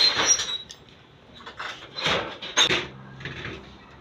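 Aluminium sliding screen door panel rattling and scraping against its frame and track as it is worked loose and lifted out, in a few loud scrapes, the last about two and a half seconds in.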